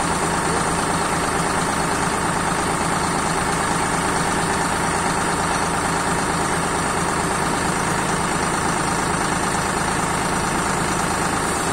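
Eicher tractor's diesel engine running steadily as it powers an ABEL front loader raising its bucket.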